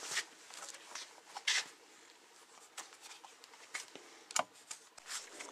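Faint rustling and brushing of fabric work gloves being pulled on, with sleeves tucked into them: a few short, scattered scuffs with quiet gaps between them.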